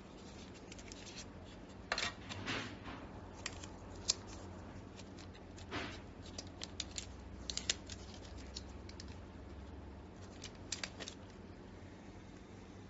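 Light clicks and rustles of a plastic earbud charging case being handled and its protective wrap and clear film peeled off, in scattered bursts. A faint low hum runs underneath.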